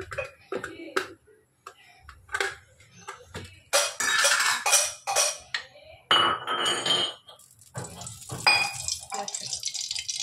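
An aluminium kadai and metal utensils knocking, clinking and scraping on a gas stove, with two longer rattling stretches in the middle. Near the end a steady hiss starts as cooking oil is poured into the pan.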